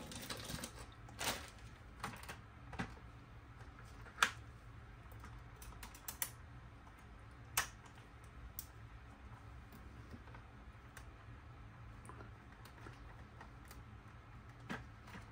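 Hard plastic parts of a vintage GI Joe Destro's Dominator toy vehicle clicking and tapping as its mechanism is worked by hand. There are scattered sharp clicks, the loudest about four seconds in. The mechanism is not working: a malfunction.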